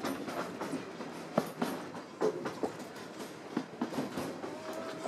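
Open-sided passenger car of a 3 ft narrow-gauge train rolling along the track, its wheels and car giving irregular clacks and knocks over a steady running noise.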